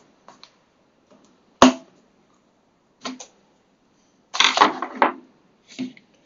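A screwdriver clicking and scraping against a hard phone case as the case is forced onto a smartphone: scattered sharp clicks, the loudest about a second and a half in, and a busier run of clicks and scrapes near five seconds.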